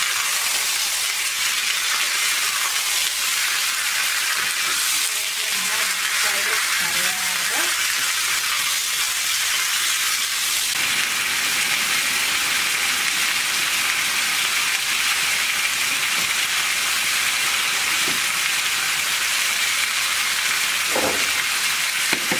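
Chicken pieces sizzling steadily in hot oil in a pan while being stirred, with a couple of light utensil knocks near the end.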